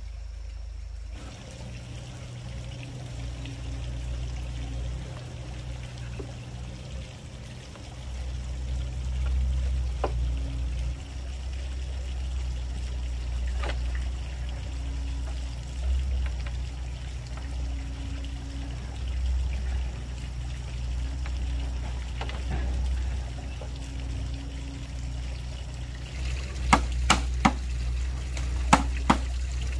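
A stream flowing and trickling steadily, with a few scattered knocks on bamboo. Near the end, a quick run of about five sharp knocks in two groups as a tool strikes the bamboo decking.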